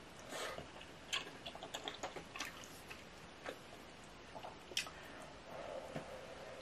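Close-miked eating sounds: soft chewing with scattered small wet mouth clicks, and wooden chopsticks lifting noodles out of the malatang broth. One sharper click comes just before the five-second mark.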